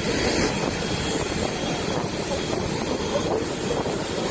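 Boeing 777 taxiing slowly, its twin jet engines running at low taxi power as a steady, even noise with no pitch changes.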